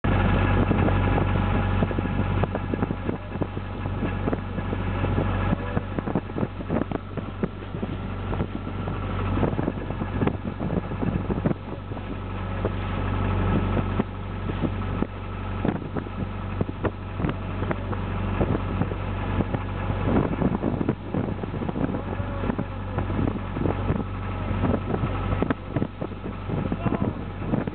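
Small open boat's engine running steadily under way, with wind gusting on the microphone.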